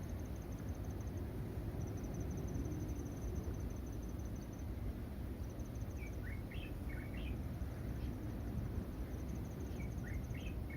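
Insects trilling in high, rapidly pulsed runs that stop and start, over a steady low rumble of outdoor background noise. Twice in the second half, short clusters of high bird chirps.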